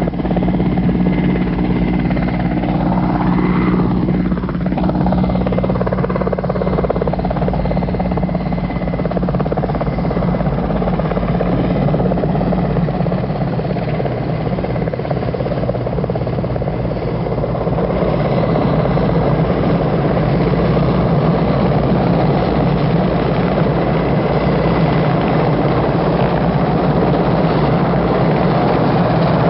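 Helicopter running steadily, its rotor and engine giving a continuous hum.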